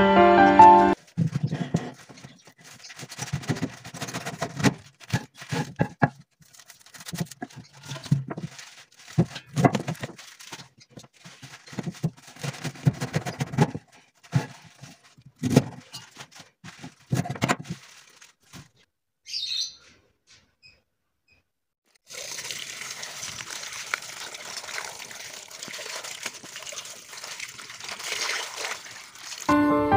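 A large knife cuts napa cabbage on a wooden cutting board, with irregular crunching knocks for about the first two-thirds. After a short pause, running tap water splashes steadily onto the cabbage leaves as they are rinsed in a bowl, stopping just before the end.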